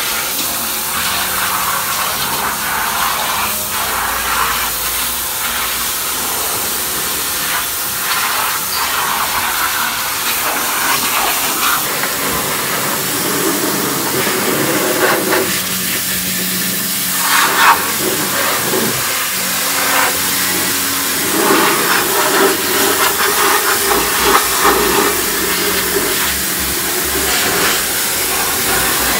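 Pressure washer water jet hissing steadily as it sprays and rinses wash foam off a bare car body's floor pan.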